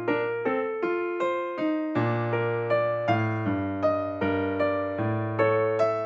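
Background music: electric piano playing a steady run of notes, about two to three a second, each struck and fading, over a held bass note.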